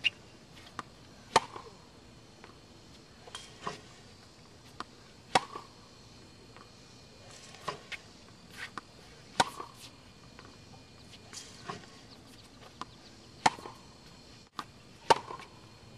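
Tennis balls struck with a racket, sharp pops every two to four seconds, with softer knocks in between.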